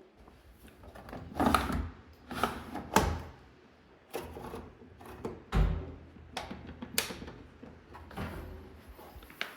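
A series of separate knocks and clunks, about six of them spread irregularly, like appliance doors or parts being opened, closed and handled in a small room.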